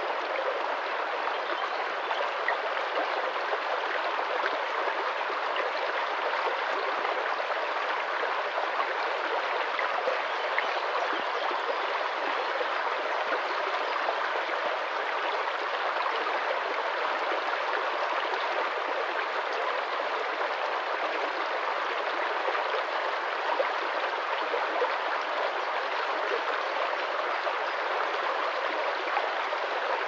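Small woodland stream rushing and gurgling over stones in a steady, unbroken babble.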